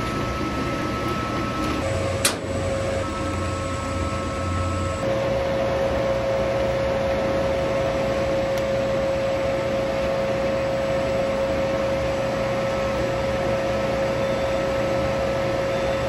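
Steady hum and whir of running commercial boilers and their combustion blower fans, with one clear steady tone through it. A single sharp click comes about two seconds in.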